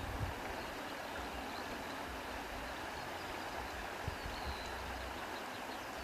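Steady rushing outdoor ambience, an even noise with a few faint high chirps about the middle.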